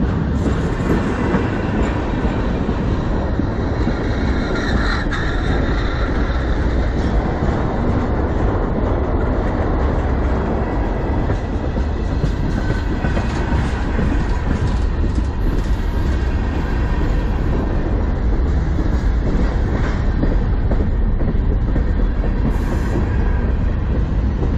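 Freight cars of a manifest train rolling past close to the track: steel wheels on the rails, loud and steady, with repeated clacks as the wheels cross the rail joints.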